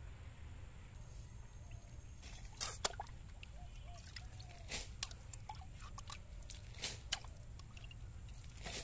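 Muddy water scooped out of a small pit with a metal bowl and tipped out: several short splashes and sloshes, a few seconds apart, over a steady low rumble.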